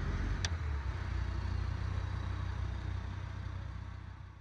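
A vehicle engine running steadily at a low pitch, fading out near the end. A single sharp click comes about half a second in.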